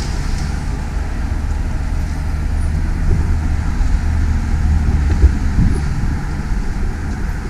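Steady low rumble of road traffic outdoors, with one short knock a little after five seconds in.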